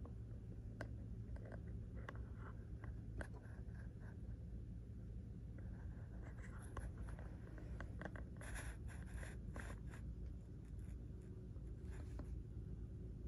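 Low steady room hum with scattered light clicks and scratchy rustles of handling, busiest about eight to ten seconds in.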